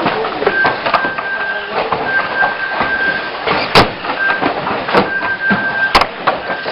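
Radio-controlled banger cars racing: a high steady whine cuts in and out as they run, broken by sharp knocks of the cars hitting each other, the loudest nearly four and six seconds in.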